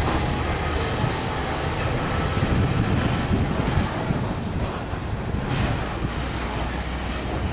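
Container semi-trailer truck driving slowly through a turn, its diesel engine running with a steady low rumble and a thin high whine. A short hiss comes about five seconds in.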